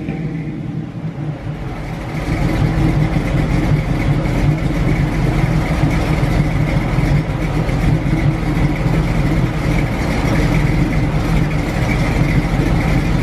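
Oldsmobile 403 V8 running at the tailpipe, its exhaust getting louder about two seconds in and then holding a steady idle.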